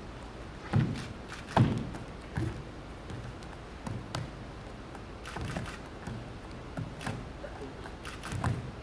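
Bare feet thudding on a studio dance floor as a dancer runs and leaps: about nine irregular landings, the two loudest in the first two seconds, over a steady low hum.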